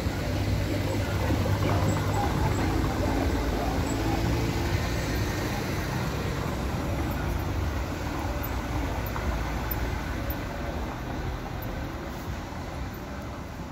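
Street traffic noise: a motor vehicle's engine rumbling nearby, with a low hum that swells early and then fades away gradually toward the end.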